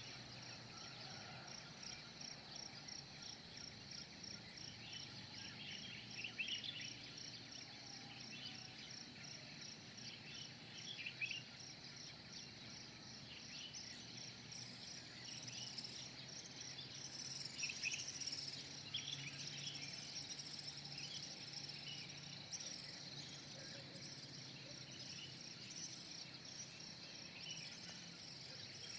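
Insects chirping in a steady, regularly pulsing chorus, with scattered bird calls over it that are busiest around the middle.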